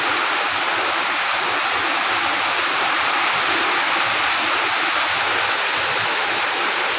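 A steady, even rushing hiss that does not change.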